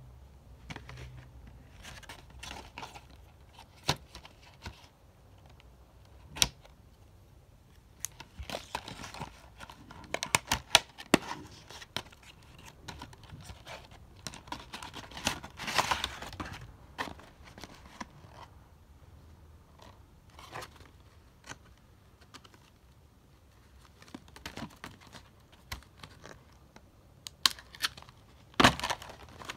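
The cardboard box and clear plastic insert of a Pokémon card special set being handled and opened: scattered clicks, taps and rustling. A longer rustle comes about halfway through, and sharp plastic clicks come near the end.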